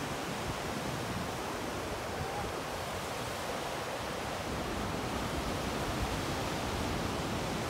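Ocean surf washing steadily on a sandy beach, an even hiss with no breaks.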